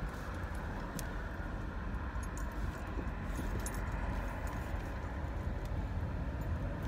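Steady low rumble of a car's engine and tyres heard from inside the cabin while driving, with scattered faint clicks and rattles.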